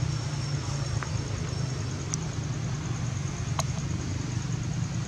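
Steady low outdoor background rumble with a faint high hum, broken by a few light clicks about one, two and three and a half seconds in.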